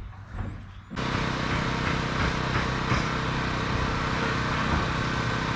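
An engine running steadily, coming in abruptly about a second in.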